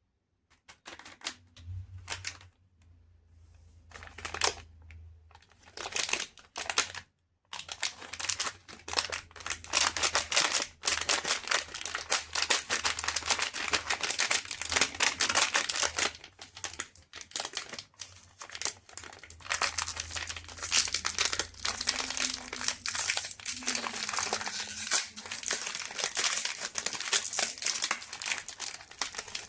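Crinkling and crackling of a wrapper being handled, likely a chocolate bar's. It comes in a few short bursts at first, then runs as dense, fast, irregular crackling from about eight seconds in.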